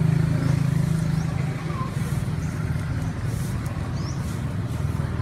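A motor vehicle engine running steadily, a low hum.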